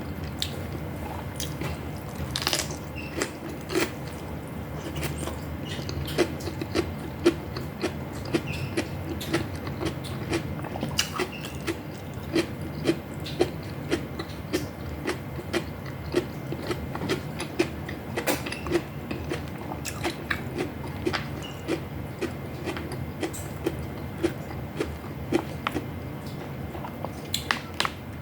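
Close-up eating sounds: chewing and mouth clicks, many short ones all through, with a few louder sharp clicks, over a low steady hum.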